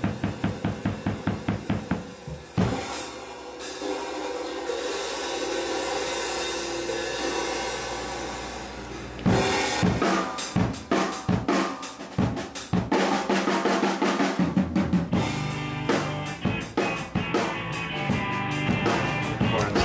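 Drum kit being played: even strokes about five a second at first, then a cymbal crash that rings on for several seconds, then a run of irregular drum hits and fills with cymbals.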